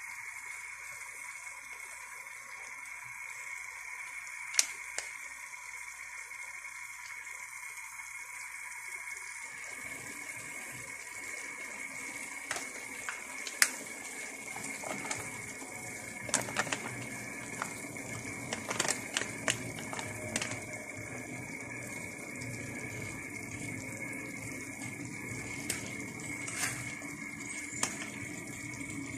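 Chicken pieces and onions sizzling in a wok: a steady hiss that grows fuller about a third of the way in, with scattered sharp clicks and knocks against the pan, most of them in the second half.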